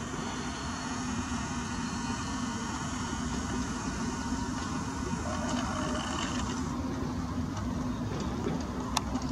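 Steady low rumble of outdoor background noise with a faint constant hum, and one sharp click near the end.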